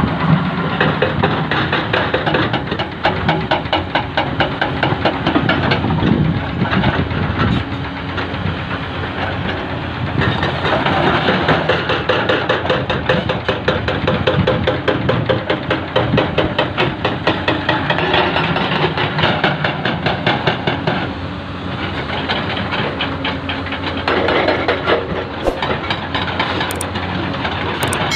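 Heavy crawler excavator diesel engines running, with the rapid, steady hammering of a hydraulic rock breaker on an excavator breaking stone.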